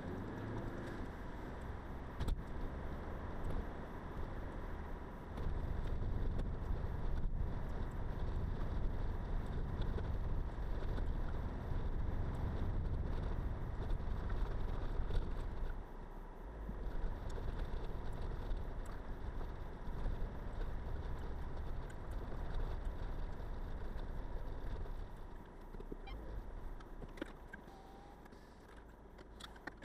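Car driving, heard from inside the cabin: a low rumble of tyres and suspension that turns heavier and rougher about five seconds in, as the car goes over a broken, potholed dirt track, with occasional small knocks. It dies down near the end as the car slows to a stop.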